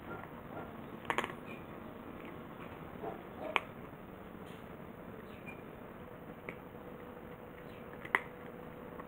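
Cat eating from a bowl: scattered sharp clicks and smacks of chewing, three louder ones about a second in, past three seconds and near the end, over a steady low hiss.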